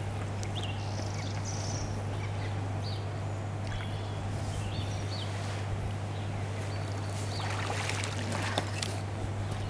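Water pouring and splashing off a fishing magnet as it is hauled up out of the canal near the end, with small birds chirping and a steady low hum throughout.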